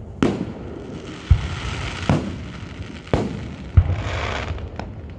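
Aerial fireworks going off: about six sharp bangs and deep thuds, roughly one a second, with a hissing noise between some of them.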